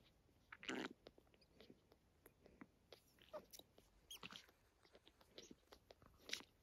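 Newborn puppies suckling at their mother's teats: faint, irregular wet smacking and clicking, with a few louder smacks about a second in, around four seconds and near the end.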